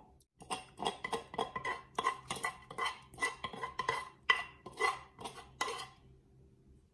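A metal spoon scraping pounded chili and shallot paste out of a mortar and clinking against the mortar and a stainless-steel pot. It is a quick run of scrapes and clinks, about four a second, that stops about six seconds in.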